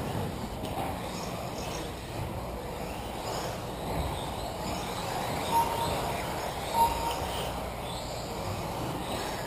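Radio-controlled 2WD electric buggies racing, their motors whining faintly as they rise and fall in pitch over a steady background noise. Two short beeps, a little over a second apart, come about halfway through: the lap-timing system registering cars crossing the line.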